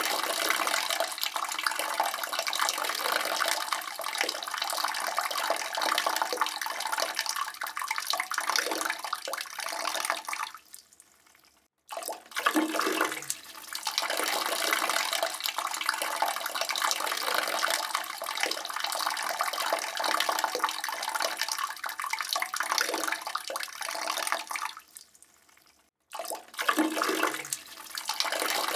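A man urinating into a toilet bowl: a steady splashing stream into the water. Twice it tails off and stops, about eleven seconds in and again near the end, and each time it starts again straight away at full strength.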